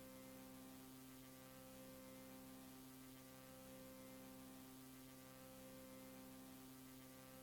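Near silence with a faint, steady hum made of several fixed tones, over low hiss.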